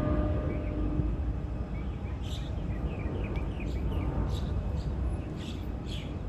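Birds chirping in short, repeated calls over a steady low outdoor rumble. A faint steady hum fades out about a second and a half in.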